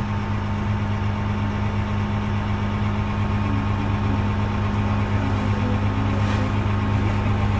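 Off-road vehicle engine running at a steady speed: an even, low hum that neither revs up nor slows down.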